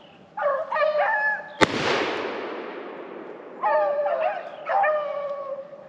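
Beagles baying in three short bouts as they run a rabbit. A single shotgun shot cracks about a second and a half in and its echo dies away over about two seconds.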